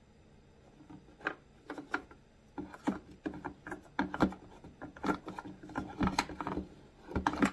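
Handling noise of small plastic parts and rubber fuel line worked by hand: irregular clicks, taps and rubs starting about a second in and growing busier, as a new fuel filter is fitted onto the fuel line inside a Stihl handheld blower's fuel tank.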